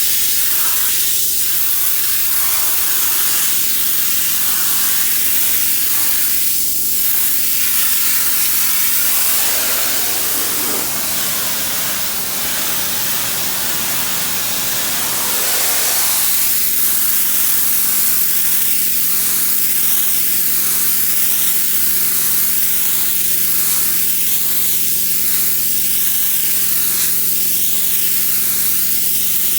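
Pressure washer spraying: a loud, steady hiss of the water jet over the steady hum of the machine. For several seconds about a third of the way in, the spray sound turns lower and rougher, then goes back to the steady hiss.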